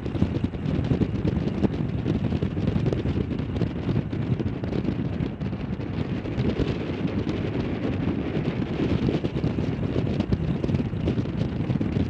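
Strong wind buffeting the microphone, a dense, fluttering rumble, over the rotor and engine noise of an MV-22 Osprey tiltrotor lifting off and climbing away.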